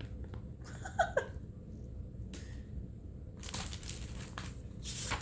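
Paper rustling and crinkling as the pages of a picture book are handled and turned, with a short falling tone about a second in.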